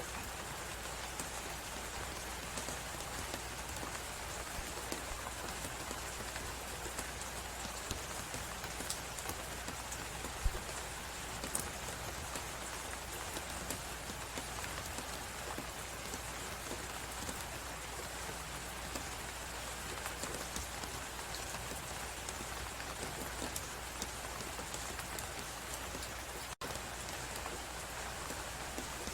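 Crackling fireplace over the steady hiss of a snowstorm wind, with scattered small pops and one louder pop about ten seconds in. A momentary dropout comes near the end.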